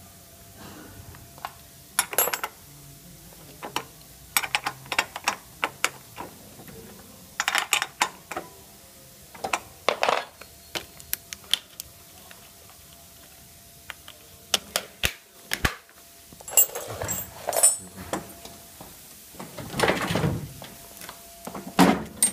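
Irregular clicks, knocks and small rattles of parts being handled while the front wheel of a Redback S461-T lawn mower is refitted: a washer on the axle and the plastic hub cap pressed onto the wheel.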